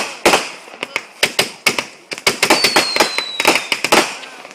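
Fireworks going off in a fast, irregular run of sharp bangs and crackles, several a second. Midway, a thin whistle slides slightly down in pitch for about a second.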